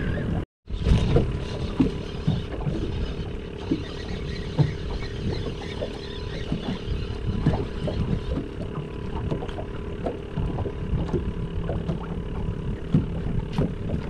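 Wind and water lapping against a small boat's hull, under a steady low hum, with scattered light knocks and taps. The sound drops out completely for a moment just after the start.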